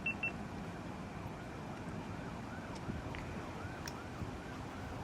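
Three short high electronic beeps from a GoPro camera being switched on, then a distant siren faintly yelping, its pitch rising and falling about three times a second.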